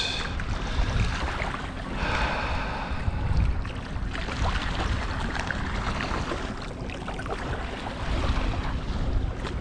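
Wind buffeting the microphone, with small waves lapping at the water's edge.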